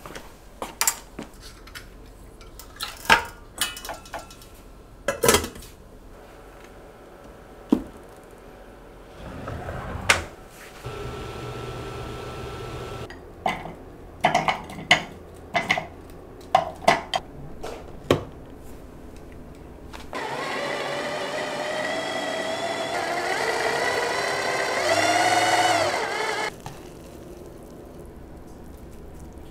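Clinks and knocks of kitchenware as onion pieces are spooned into a plastic chopper bowl. About twenty seconds in, a stick hand blender's chopper attachment runs for about six seconds, mincing the onion, its motor pitch dipping just before it stops.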